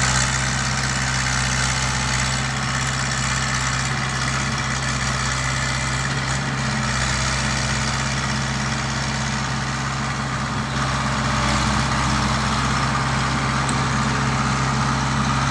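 Volvo excavator's diesel engine running steadily, with a slight rise in level about ten seconds in.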